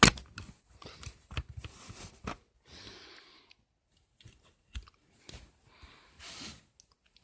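Handling noise from a plastic smoke detector being turned over in the hands: a sharp click at the start, a run of small clicks and knocks over the first couple of seconds, then a few soft rustles.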